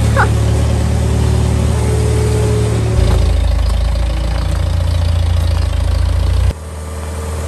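Engine of an International Harvester loader tractor running steadily under way, its low hum changing abruptly about three seconds in and again near the end, with a brief squeal right at the start.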